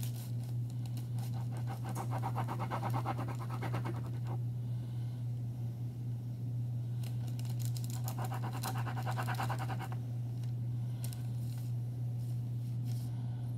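A small knife sawing through raw dough against paper, in two spells of rapid scratchy strokes of about three seconds each, over a steady low hum.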